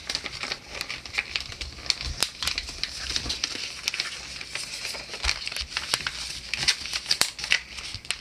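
A sheet of A4 paper being folded and creased by hand. It crinkles and rustles with many small, quick crackles as the layers are pressed flat.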